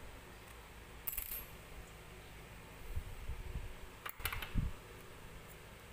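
Small metal objects clinking against a hard surface, once about a second in and again about four seconds in, with a few dull knocks of handling in between.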